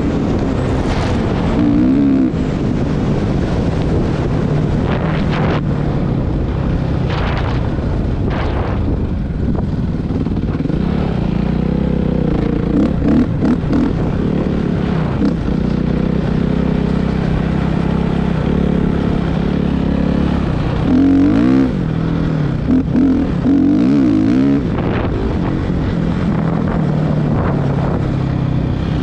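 Suzuki RM-Z450 dirt bike's four-stroke single-cylinder engine running under riding load. Its pitch rises and falls with the throttle, most quickly over the last third.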